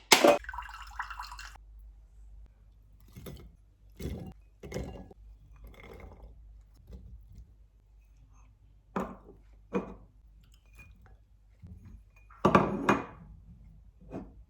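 Kitchenware being handled: a sharp click at the start, then a scattering of short clinks and knocks of dishes and glass, with a louder cluster near the end.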